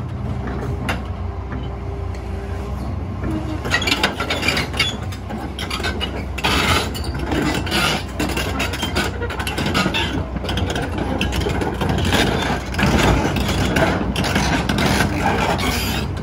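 Liebherr crawler excavator's diesel engine running steadily while the machine travels, with the steel tracks clanking in quick irregular strokes, more often from about four seconds in.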